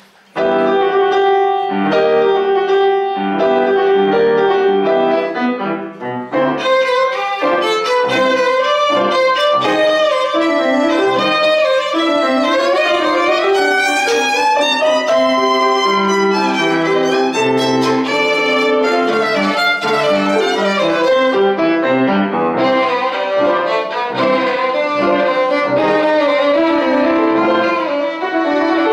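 Solo violin playing with grand piano accompaniment, starting about half a second in; the violin's held notes carry a visible vibrato, and the music briefly thins near six seconds before going on.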